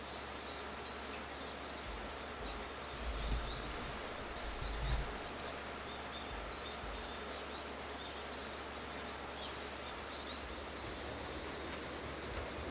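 Rural outdoor ambience: a steady low hiss with many small, high chirping calls from wildlife scattered throughout, and a couple of low bumps about three and five seconds in.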